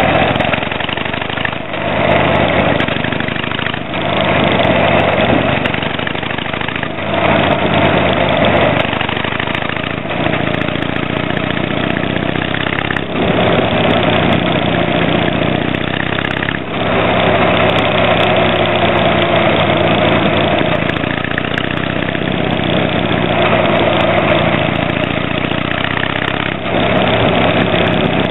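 Harley-Davidson Sportster 883 Hugger's air-cooled V-twin running under way, heard through tapered mufflers fitted with silencer inserts. The engine note rises between brief dips every few seconds.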